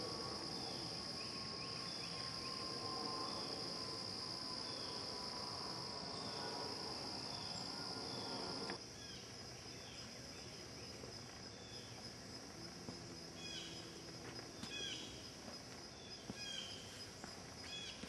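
Steady, high-pitched chorus of crickets and other insects, dropping abruptly to a quieter level about nine seconds in. In the quieter part, short falling chirps repeat over the chorus, along with a few sharp ticks.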